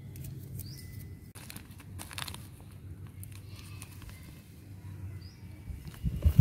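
Hands handling a small clear plastic seed packet and soil, with a few light rustles over a low steady rumble, and a burst of loud low thumps near the end.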